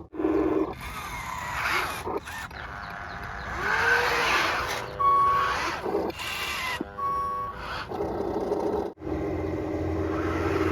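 Radio-controlled toy construction vehicles working: electric motors whining, with two short electronic beeps like a reversing alarm, about two seconds apart, in the middle.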